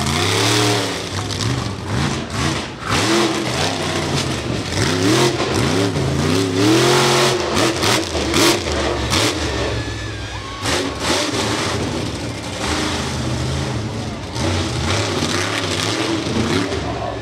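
Monster truck engine revving up and down repeatedly as the truck drives and turns, with several sharp rises and falls in pitch over the first half. After that it runs at a steadier pitch.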